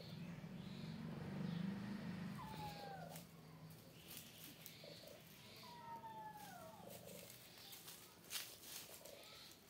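A cat purring close by, strongest in the first few seconds and fading out, with two short high calls that fall in pitch partway through.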